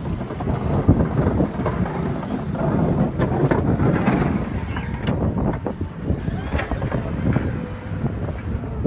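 A vehicle engine running with a steady low rumble, wind buffeting the microphone, and scattered knocks and clatters.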